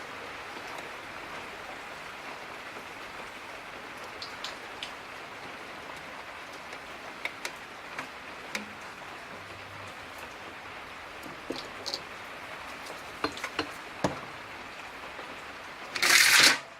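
Soldering flux sizzling and crackling under a hot soldering iron tip on aluminium: a steady hiss with scattered small crackles. Near the end comes a brief, loud rush of noise.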